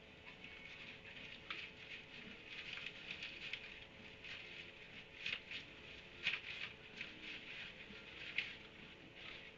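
Small animals scuffling, with irregular short scratchy squeaks and rustles, a few sharper ones standing out, over a faint steady electrical hum.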